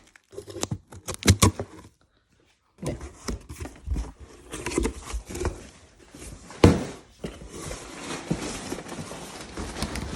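Opening a delivered package by hand: cardboard and packing material rustling, with scattered taps and knocks.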